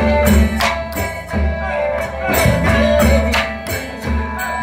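Surin Khmer folk music for the rueam an-re bamboo pole dance: sustained melody tones over a steady beat, with sharp percussive clacks about every two-thirds of a second.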